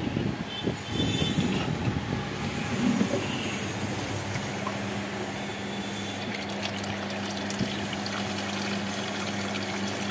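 Bajaj air cooler running with its newly replaced motor, after a 440 V surge burnt the old one out. An uneven rush for about the first three seconds gives way to a steady low motor hum.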